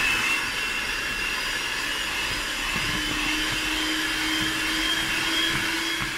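Electric hand mixer running steadily, its beaters mixing cold mascarpone into whipped cream in a plastic bowl. The motor gives a steady high whine, and a lower hum comes in about halfway through.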